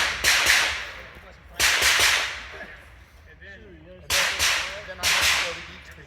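Gunshots: about five sharp, irregularly spaced shots, each with a long echoing tail.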